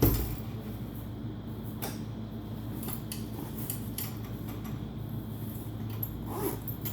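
A rolling backpack and its frame being handled during assembly: a sharp knock at the start, then scattered light clicks and rustles.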